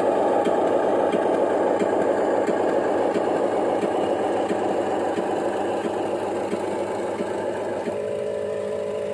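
Radio-controlled construction models running: a steady, dense mechanical whirring with a fine rattle, easing to a quieter, steadier hum about eight seconds in.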